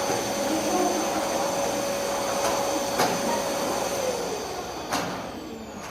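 Vacuum cleaner motor running with a steady whine and rushing air, then switched off about four seconds in, its whine falling in pitch as it winds down. A couple of sharp clicks.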